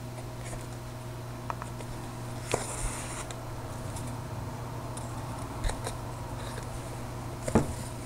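Hand-stitching: a needle and thread drawn through cloth and paper, with soft rustling and a few small ticks, and a brief hiss about two and a half seconds in as the thread is pulled through. A steady hum runs underneath.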